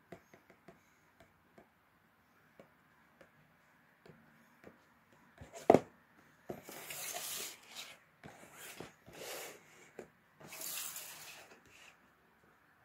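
Small cardboard boxes handled by hand: light taps and clicks at first, one sharp knock nearly six seconds in, then several hissing rubs and slides of cardboard, each lasting up to about a second.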